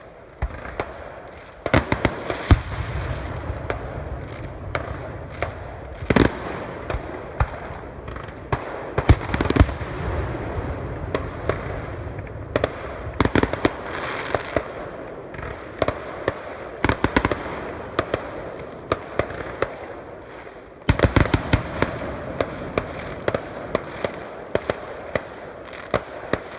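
Fireworks going off in quick succession: a steady stream of sharp bangs and crackling over a continuous rumble. Denser, louder volleys come about 2, 6, 9 and 21 seconds in.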